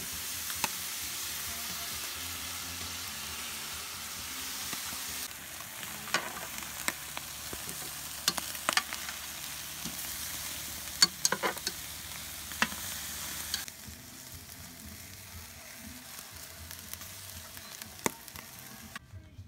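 Chicken drumsticks sizzling on a charcoal kettle grill: a steady hiss, with scattered sharp clicks of metal tongs against the grate. The hiss drops sharply about two-thirds of the way through.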